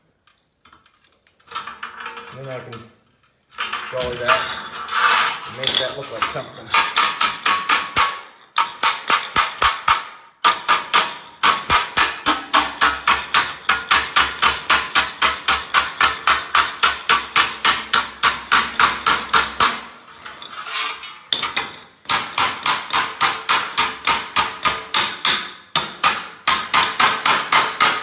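Body hammer striking the edge of a sheet-metal patch panel against a hand-held dolly, bending the edge over into a flange: a fast, even run of metallic blows at about four a second. The hammering starts several seconds in and breaks off briefly about two-thirds of the way through.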